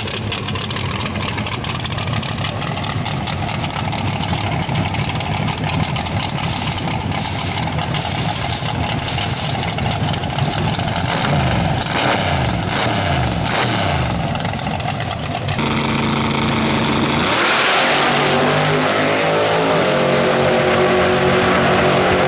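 Chevy LUV drag pickup doing a burnout: engine revving up and down as the rear tyres spin. After a sudden change partway through, drag-race engines hold steady at the line, launch with a loud burst, and rise in pitch as they accelerate away.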